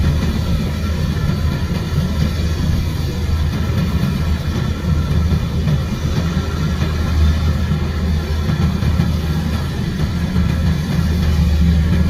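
Kubota rice combine harvester's diesel engine running steadily under load as it cuts and threshes rice, a constant low hum with the whir of the machinery.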